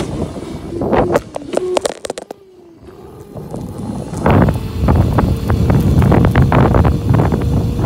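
Phone being handled against clothing, with rustles and knocks, then from about four seconds in loud wind buffeting the phone's microphone while riding a moped, with a faint steady hum underneath.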